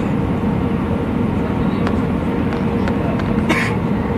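Steady low rumble of an Airbus A319 airliner, with a constant hum running through it and a short hiss about three and a half seconds in.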